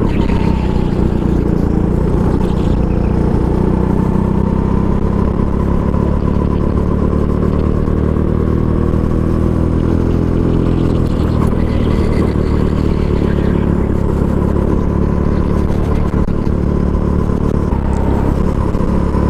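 Go-kart engine running steadily at speed, heard close up from on board the kart as it laps the track.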